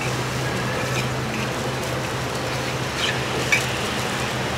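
Steady background noise of a market food stall with a continuous low hum and a few faint clicks.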